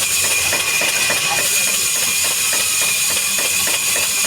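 Woodworking machinery running steadily: a loud high hiss with a steady whine, over a rapid, irregular clatter of ticks.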